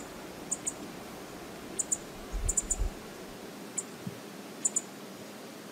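Outdoor ambience: a steady hiss with about ten short, sharp high-pitched ticks scattered irregularly, some in quick pairs or threes, and a brief low rumble a little over two seconds in.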